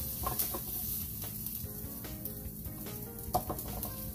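Thin-sliced marinated beef bulgogi sizzling on a George Foreman electric contact grill, with a few light clicks of metal tongs as the meat is lifted off the ridged plate.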